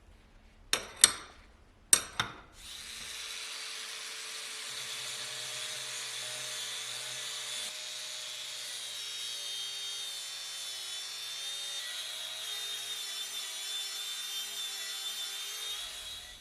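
Four sharp knocks in two quick pairs. Then a power tool starts and runs steadily with a fairly high whine for about thirteen seconds before stopping.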